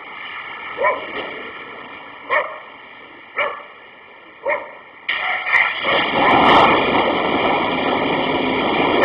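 A dog barks four times, about a second apart. About halfway through, a loud, steady rushing noise comes in abruptly and continues.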